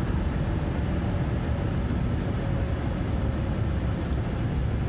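Steady low rumble of a car on the highway, heard from inside the cabin.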